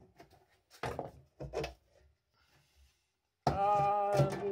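Thin aluminium shield lid being lifted off a base-station amplifier housing and set aside: a few light knocks and clicks in the first two seconds. Near the end a man's voice comes in with a long, drawn-out held tone, louder than the knocks.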